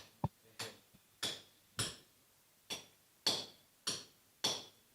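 Steady rhythmic knocking, a little under two sharp knocks a second, each dying away quickly, with one skipped beat about halfway through.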